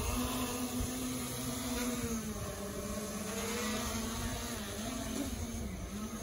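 Small quadcopter drone hovering and flying low, its motors and propellers giving a steady whine that wavers and dips in pitch as the throttle changes.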